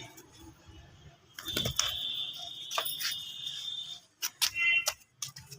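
Parrot calling: a long, high, steady screech lasting about two and a half seconds, then a short call near the end, with a few sharp clicks.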